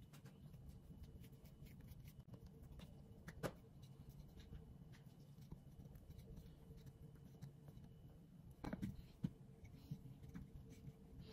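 Faint rubbing of a wooden rolling pin rolling out pastry dough on a plastic-wrapped counter, with a light knock about three seconds in and a few more toward the end, over low room hum.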